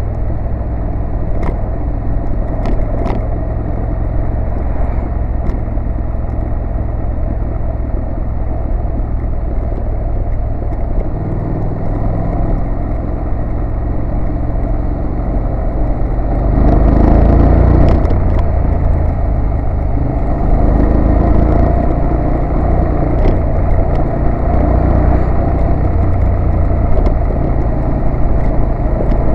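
A 2014 Honda NC750S's parallel-twin engine running as the motorcycle is ridden at road speed, with a steady low rumble of wind and road noise on the microphone. It gets louder for a moment about 17 seconds in, then settles to a slightly higher level.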